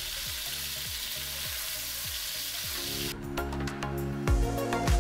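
Sausage and garlic frying in olive oil in a pan: a steady sizzle that cuts off about three seconds in, with background music and its steady beat taking over.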